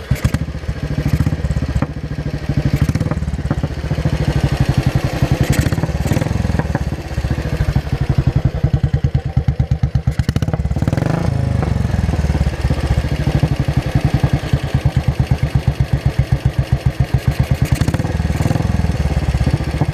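2003 Royal Enfield 500 iron-barrel single-cylinder engine running just after starting on its newly fitted JRC 30 mm flat-slide carburetor, exhausting through a Gold Star muffler: a loud, steady train of evenly spaced exhaust pulses. The revs rise briefly about eleven seconds in, then settle back.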